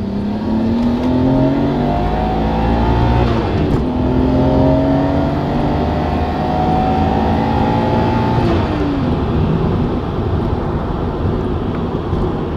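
Nissan Skyline GT-R's twin-turbo straight-six, running through a test pipe in place of the catalytic converter, accelerating hard in a turbo spool test, heard from inside the cabin. Engine pitch rises through one gear, drops at a shift about three and a half seconds in, and climbs again through the next gear until the throttle comes off about eight and a half seconds in, leaving steady road and tyre noise.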